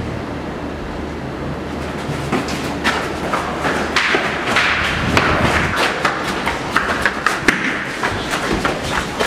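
Running footsteps and thumps on a hard hallway floor, an irregular patter of knocks that grows busier about four seconds in.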